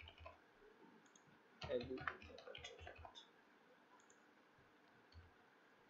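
Computer keyboard being typed on: soft scattered key clicks, then a quick run of keystrokes from about a second and a half in to about three seconds.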